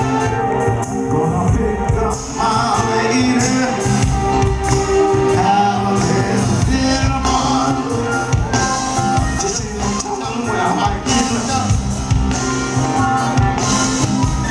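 Live R&B band playing, with bass, drums and keyboards under a male lead vocal and backing singers, heard loud through the concert sound system.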